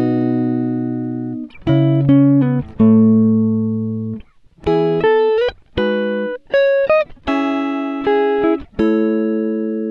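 Background music: slow, calm plucked-string notes, struck about once a second and left to ring out and fade.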